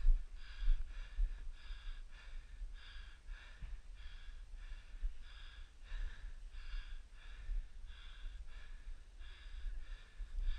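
Rapid heavy panting close to the microphone, about two to three breaths a second, over a low rumble.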